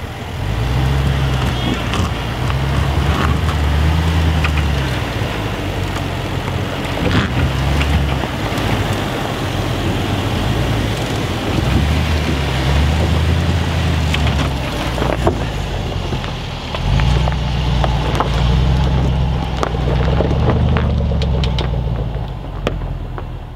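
Range Rover Sport's engine working up a rocky dirt slope in low-range four-wheel drive, the revs rising and falling in repeated surges, with tyres crunching and clicking over loose stones and gravel.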